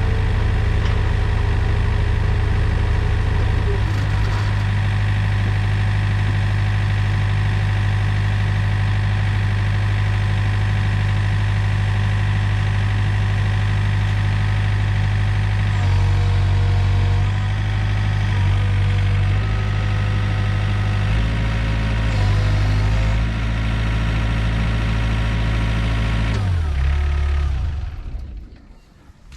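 Takeuchi TB145 mini excavator's diesel engine running steadily, its pitch shifting a few times past the middle, then shutting off and running down near the end.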